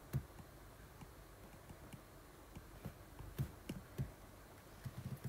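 Faint, irregular taps and clicks of a stylus on a tablet screen during handwriting, with one sharper tap just at the start and a run of taps in the second half.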